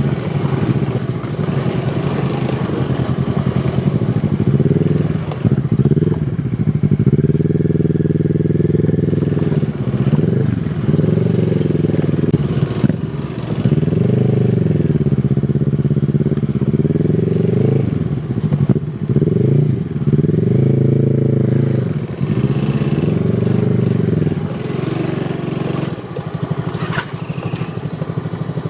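Kawasaki Versys 650's parallel-twin motorcycle engine being ridden off-road, its note rising and falling again and again as the throttle is opened and closed over rough ground.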